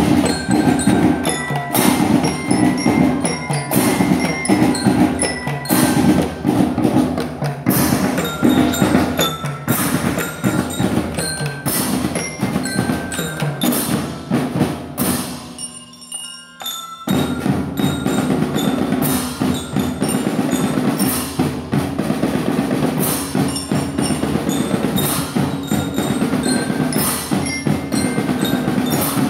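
School drum band playing a marching tune: drums and cymbals beating under a bell-lyra (marching glockenspiel) melody. The playing breaks off briefly about halfway through and starts again.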